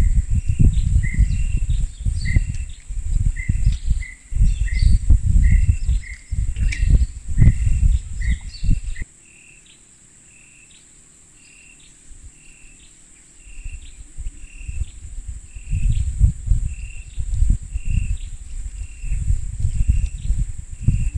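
Tropical forest ambience: a steady high-pitched insect drone with a short chirping call repeated over and over. Irregular gusts of wind rumble on the microphone, dropping away for a few seconds in the middle.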